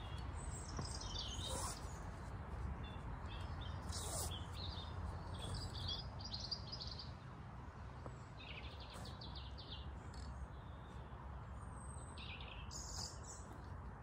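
Garden birds chirping and singing in scattered short calls over a steady low rumble, with a few soft scrapes of a spade cutting into lawn turf.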